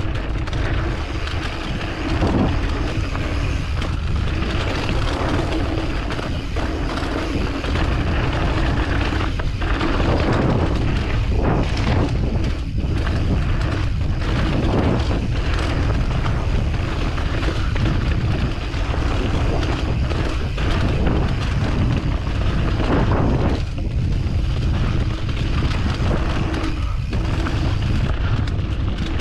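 Wind buffeting an action camera's microphone during a mountain bike ride down a dirt trail, with steady tyre-on-dirt noise and frequent knocks and rattles from the bike over bumps.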